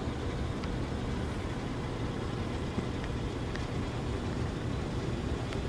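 Steady low rumble and hiss of outdoor city background noise.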